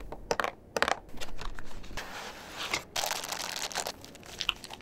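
Cardboard box being opened and the plastic bags of eraser pieces inside crinkling as they are handled and lifted out. There are a few light clicks at first, then two long stretches of crinkling with a short break between them.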